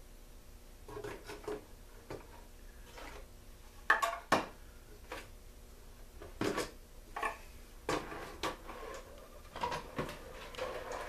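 Small metal and plastic parts clinking and clattering as hands rummage through a plastic bucket of parts, with irregular sharp knocks, the loudest a pair about four seconds in.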